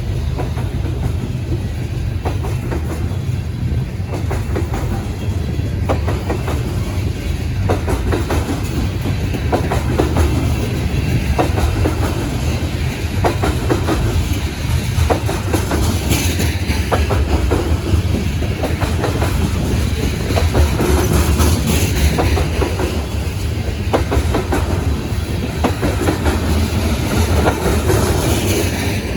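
A train's cars rolling past, a steady low rumble with the wheels clacking irregularly over rail joints. There is louder high-pitched hiss about halfway through and again a few seconds later.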